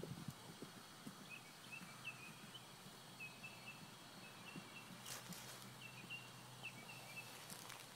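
Faint, dull hoofbeats of a horse on grass, thinning out after the first second as the horse moves away. A bird chirps over them in short, high, repeated notes. Two short bursts of noise come about five and seven and a half seconds in.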